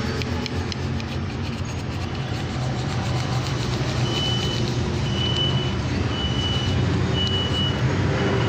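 Low, steady rumble of a motor vehicle running, with a few light taps near the start. From about four seconds in, a vehicle's reversing alarm beeps about once a second.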